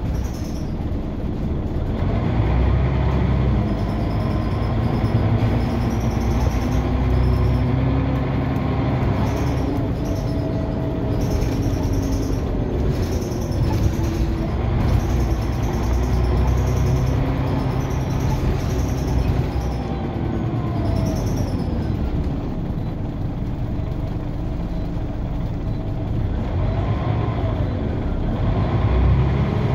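Scania OmniCity single-deck bus driving, heard from the rear seats inside the saloon: a steady engine and road rumble, with the engine note sliding up and down a few times.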